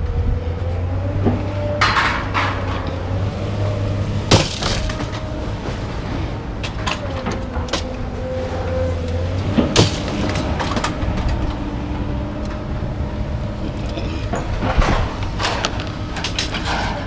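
A vehicle engine idling steadily, with several sharp clanks and rattles of hard items being handled, loudest about four seconds in and near ten seconds in.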